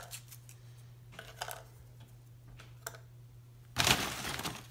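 Small hard pretzels being set down one by one on a waffle iron's metal plate: light taps and clicks, then a louder, brief rustle about four seconds in. A steady low hum runs underneath.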